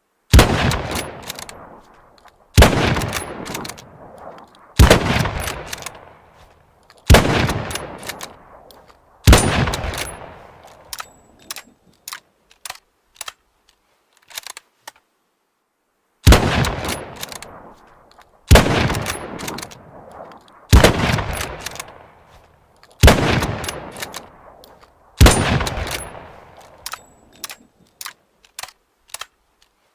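Mosin-Nagant bolt-action rifle, 7.62×54mmR, firing two strings of five shots, each shot about two seconds apart with a long echoing tail. Small metallic clicks fall between the shots and through a pause of several seconds between the two strings.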